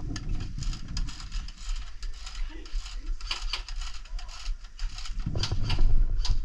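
Scattered sharp snaps of airsoft gunfire and BBs striking nearby surfaces, several a second at irregular intervals, over a steady low rumble of handling noise.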